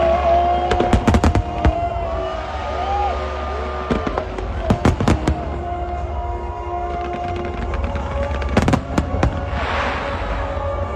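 Fireworks bursting in three quick volleys of sharp bangs, the last followed by a crackle, over music that plays throughout.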